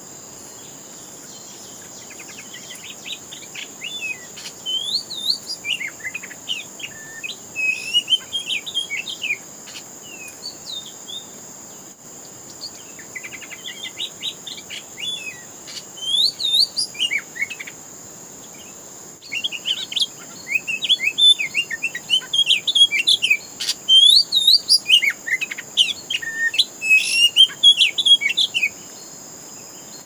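Oriental magpie-robin (kacer) singing in bursts of varied whistles and chirps, pausing twice, with a steady high insect drone behind it.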